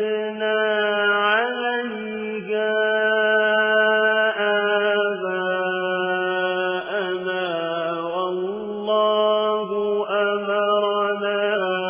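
A solo voice reciting the Quran in a melodic chanted style. It holds long, drawn-out notes with slow, ornamented bends in pitch between them.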